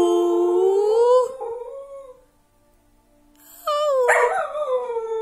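A whippet howling with a person howling along. A long howl rises in pitch and breaks off about a second in. After a short pause, new howls start, slide down in pitch and then hold steady.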